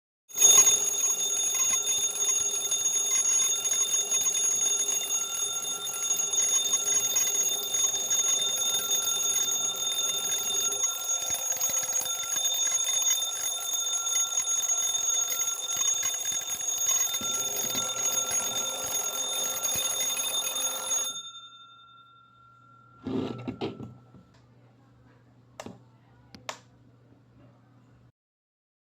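Twin-bell alarm clock ringing, its hammer rattling rapidly between the two metal bells in one loud continuous ring that stops after about twenty seconds. A few short knocks and clicks follow.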